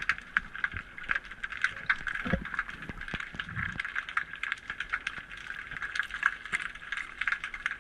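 Underwater sound picked up through a camera housing: a steady muffled hiss with a dense, irregular crackle of small clicks.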